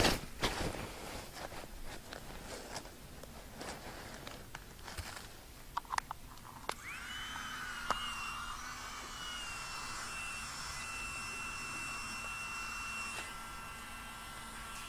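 Nylon of a Therm-a-Rest NeoAir air mattress rustling as it is unrolled and handled, with a few clicks. About seven seconds in, its small AA-battery pump starts with a rising whine, then runs steadily at one pitch, inflating the mattress.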